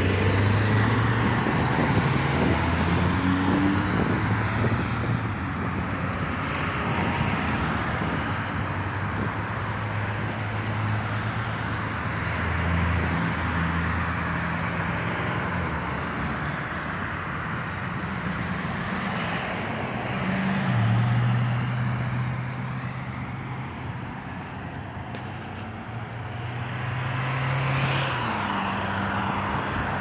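Road traffic passing: a steady rush of tyre noise with engine hum, swelling each time a vehicle goes by.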